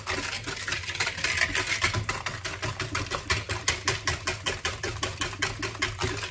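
Whisk beating egg yolks and sugar in a bowl, a fast even clatter of about six strokes a second: the mixture is being blanched, whisked until pale.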